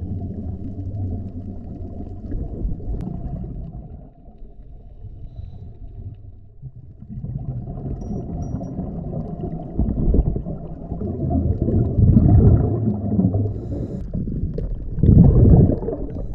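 Underwater sound heard through a camera housing: low, muffled rumbling with surges of bubbling from scuba divers' exhaled air, strongest in the second half.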